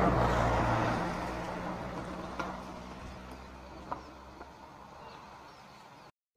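A motor vehicle passing, its engine hum and road noise loudest at the start and fading away over the next few seconds. Two faint ticks come in the middle, and the sound cuts out just before the end.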